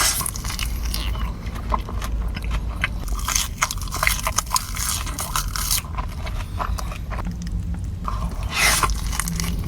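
A person chewing and biting food close to the microphone, with irregular small crunches and smacks. A brief rustle comes near the end.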